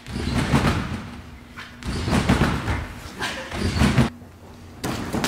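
Several heavy thuds as a person lands flipping on a trampoline with a large inflated Wubble Bubble ball, the ball and the trampoline bed taking the impacts.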